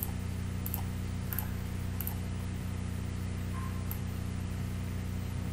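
A steady low electrical hum, with a few faint clicks.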